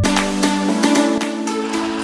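Upbeat electronic music with a steady beat.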